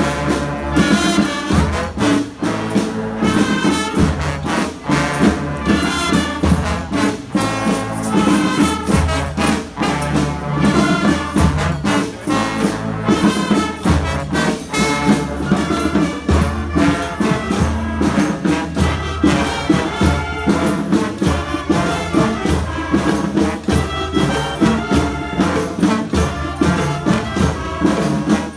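Street brass band playing: trumpets and trombones over drums and percussion, which keep a steady beat.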